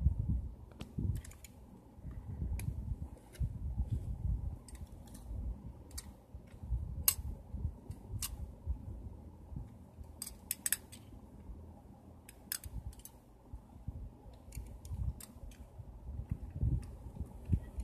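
Toy front-loader garbage truck worked by hand: its front lift arms and forks click and clatter as they raise and tip a toy dumpster, with scattered sharp clicks over dull handling thumps.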